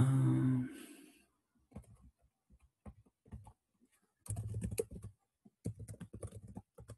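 Computer keyboard typing: scattered key clicks, then two quick runs of keystrokes in the second half. It opens with a brief low hum lasting about a second, the loudest sound here.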